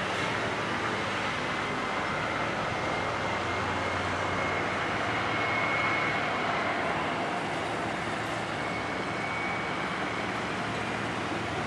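NLG Superjet fast ferry's engines running steadily as it heads out of the harbour under way, with a faint high whine that swells around the middle and eases off.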